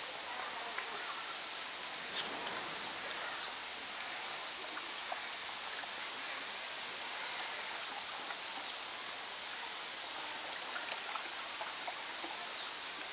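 Shallow stream running over rocks: a steady rush of water, with a few faint short ticks.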